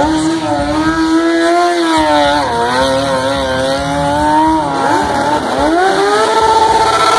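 Motorcycle engine revving up and down as the bike circles. Its pitch rises and falls, drops about two and a half seconds in, and swings sharply near the end.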